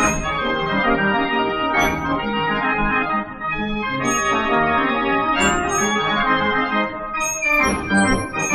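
The Great Gavioli (De Grote Gavioli), a Dutch street organ, playing a tune from a 1963 LP record: pipe-organ music with a steady accompaniment and occasional percussion strikes.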